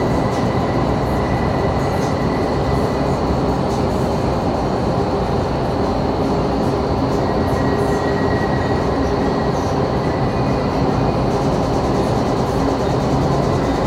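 Indoor skydiving wind tunnel's fans driving the vertical airflow: a steady, loud rush of air.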